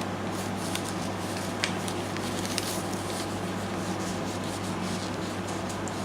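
Paper pages and card rustling and rubbing as a handmade journal is handled and its pages turned, with a few faint ticks. A room air conditioner hums steadily underneath.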